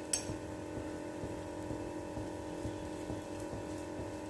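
A steady low hum made of several fixed tones over a faint even hiss, with one light click just after the start.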